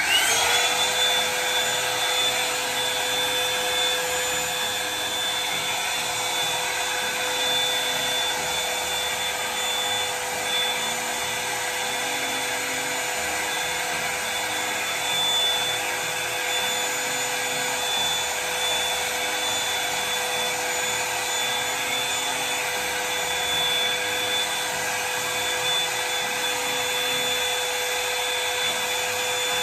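Hot Tools One Step Blowout Volumizer hot-air brush dryer switched on at its heat setting. Its motor spins up with a brief rising whine at the start, then runs steadily with a constant whine over a rush of blown air.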